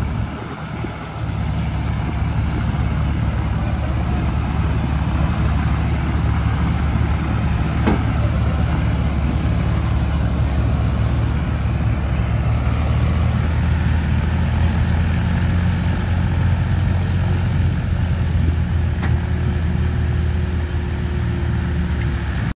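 Farm tractor's diesel engine running steadily under heavy load, pulling a loaded trolley through a soft, muddy paddy field where the rig is bogging down. The engine note dips briefly about a second in, then picks up and runs harder about twelve seconds in.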